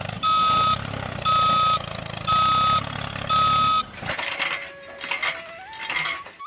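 Vehicle reversing alarm beeping four times, about once a second, over a low motor hum. After that a clattering noise with a rising tone.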